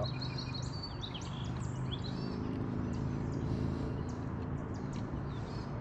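Songbirds chirping and singing, short repeated calls, over a steady low hum of outdoor background noise.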